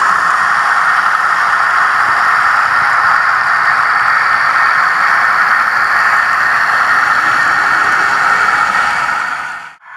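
Trix Märklin Ae 8/14 model locomotive running, a steady rushing noise that cuts out briefly near the end and then comes back.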